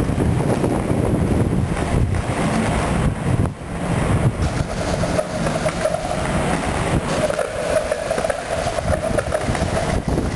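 Inline skate wheels rolling fast over the concrete deck of a parking garage, a steady rumble with wind buffeting the microphone. About four and a half seconds in a steady hum joins in and holds until near the end.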